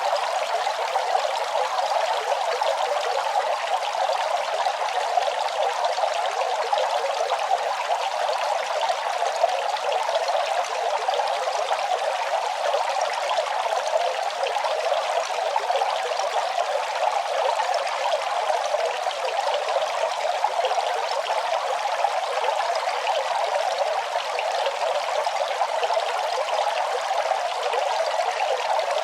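Running water flowing steadily with an even, unbroken splashing sound, mostly in the middle and upper range with no deep rumble.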